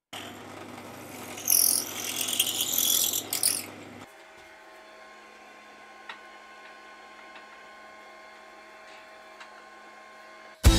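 A yew blank being handled and set between the centres of a wood lathe. There is a loud stretch of wood scraping and knocking in the first few seconds. Then it goes quieter, with a steady faint hum and a few light, separate clicks as the blank is fitted to the lathe.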